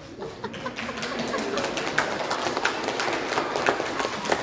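Audience of children clapping and cheering, the noise swelling over the first second and then holding steady.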